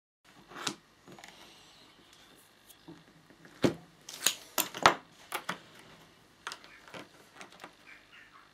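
Scattered sharp clicks and taps of hands working on model railway track: a small hand driver pressing a track pin through a plastic sleeper into the baseboard, and a plastic curve-plotting tool being set on the rails. The loudest run of taps comes about four to five seconds in.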